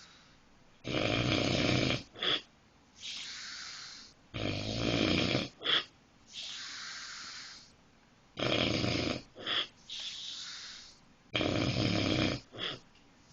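Heavy snoring in a steady rhythm: four loud, rough snores about every three and a half seconds. Each is followed by a short sharp catch and a softer, breathy stretch.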